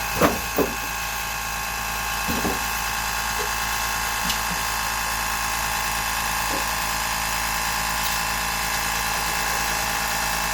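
Excell ultra-quiet 2-gallon oil-free air compressor running with a steady, quiet hum. Two sharp knocks come just after the start, and a few softer thumps about two seconds in.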